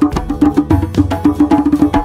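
Two hand drums played with bare hands in a quick, busy rhythm, with many slaps and tones a second over a ringing low drum note.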